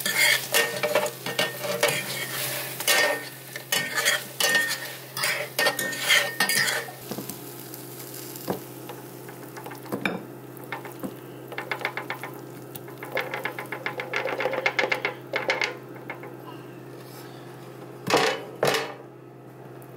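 Metal forks stirring and scraping saucy fried fish pieces in a nonstick skillet with a light sizzle, many quick clicks and scrapes against the pan. About ten seconds in, a second run of clicking as the pieces are scraped out into a ceramic bowl, then a single knock near the end, over a steady low hum.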